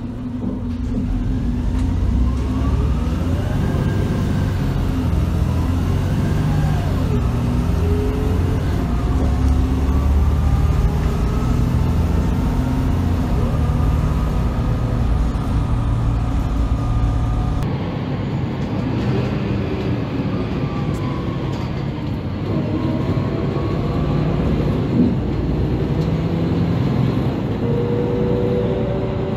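Interior noise of a Wrightbus Streetlite single-deck bus under way: the engine's drone and a gearbox whine rise and fall in pitch as it works up and down through the gears, changes the uploader finds as rough as a learner driver's. The sound changes abruptly about two-thirds through, to another stretch of bus running.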